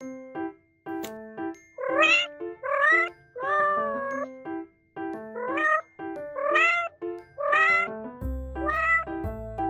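A cat meowing again and again, about seven meows, one of them longer, over light background music of short, bright notes.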